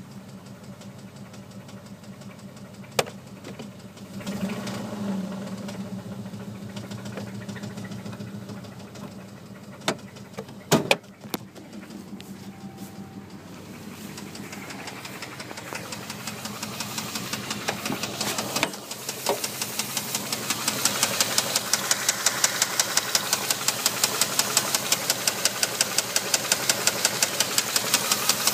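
Dodge Durango 4.7-litre V8 running with a fast, even knock in time with the engine, the sign of a worn connecting-rod bearing on cylinder 2. The knock grows louder and plainer about halfway through, and a few sharp clicks stand out earlier on.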